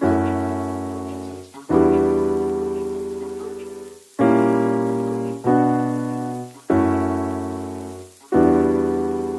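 Background music: slow piano chords, six struck one after another about every one to two and a half seconds, each left to ring and fade before the next.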